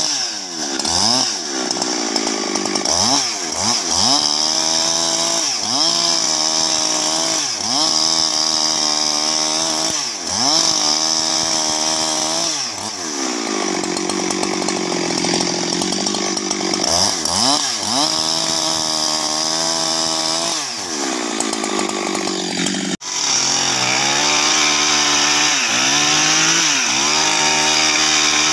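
Husqvarna two-stroke chainsaw running under load as it rips lengthwise through a bayur log. The engine pitch sags and recovers every second or two as the chain bites into the wood.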